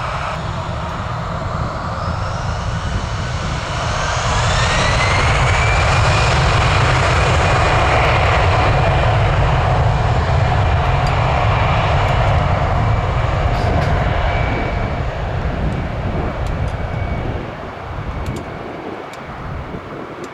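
Jet airliner engines spooling up: a rising whine over a heavy steady rumble, loudest through the middle and then fading away near the end.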